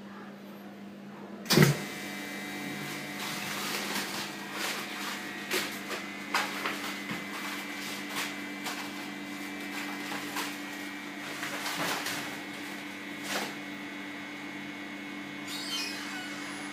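Vacuum machine switched on with a sharp click about a second and a half in, then running with a steady hum, with scattered clicks and knocks throughout.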